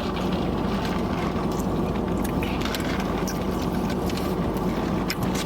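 A steady low rumble with a hum, holding an even level throughout.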